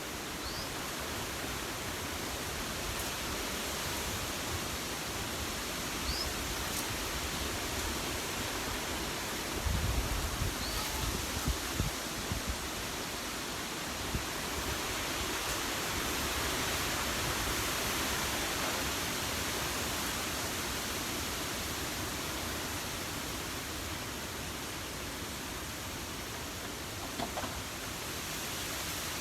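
Strong wind rushing through the trees on an exposed mountaintop, a steady roar that swells and eases in gusts and builds about halfway through. About a third of the way in, gusts buffet the microphone in a burst of low thumps.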